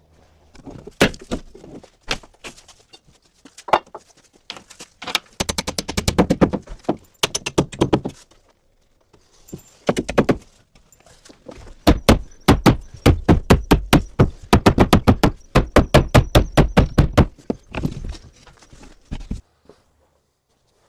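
Hammering: scattered single blows, then two long runs of rapid, hard blows several a second. The sound stops abruptly shortly before the end.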